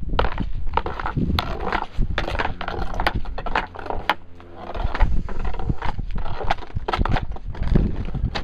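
Footsteps crunching on packed snow at a walking pace: an uneven run of crisp crunches that thins out briefly about halfway through.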